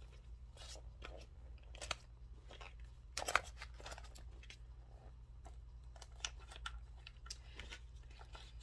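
Hands handling a wristlet and the items being put back into it: scattered rustles, taps and scrapes, the loudest about three seconds in.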